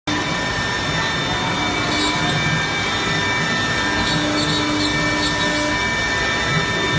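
A 1325 CNC router running: a steady, even machine noise with several high steady whining tones over it.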